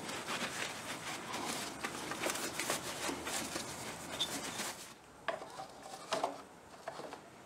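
Close rustling and rubbing of a sleeve and hands working in tight around a mower engine, with light clicks and clatter of parts, thinning out about five seconds in to a few separate knocks.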